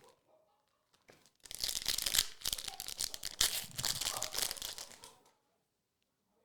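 A foil wrapper on a pack of Marvel Annual trading cards being torn open and crinkled: a dense crackle that starts about a second and a half in and lasts nearly four seconds.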